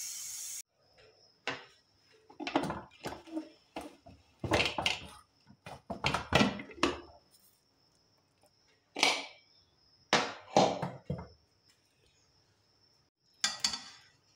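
Steam hissing out of an aluminium pressure cooker, cutting off about half a second in. Then a series of short metal clanks and scrapes as the cooker lid is handled and opened and a steel slotted spoon knocks against the pot.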